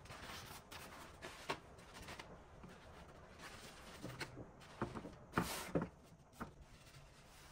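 Scattered small knocks, clicks and brief scrapes of things being handled, with the loudest cluster a little past the middle.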